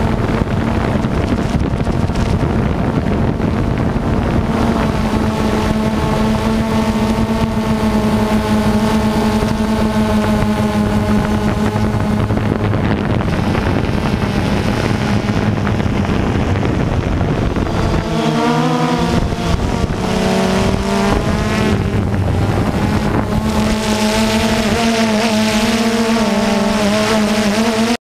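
DJI Phantom 2 quadcopter's motors and propellers humming steadily, with wind noise on the microphone. About eighteen seconds in, the pitch wavers up and down for a couple of seconds as the motors change speed, then holds steady again.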